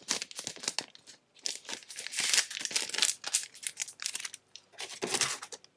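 Plastic packaging of board-game components crinkling and rustling as it is handled, a quick run of crackles, loudest in the middle and again near the end.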